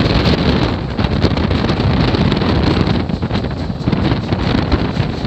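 Loud wind buffeting the microphone held out of a moving train's doorway, over the steady running rumble of the coach on the track.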